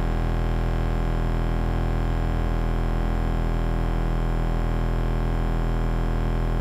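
Experimental electronic music: a thick, noisy synthesizer drone holding one dense cluster of pitches steadily.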